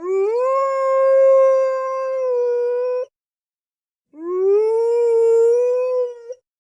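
Two long wolf howls, each sliding up in pitch at the start and then held steady for about three seconds, with a short silence between them.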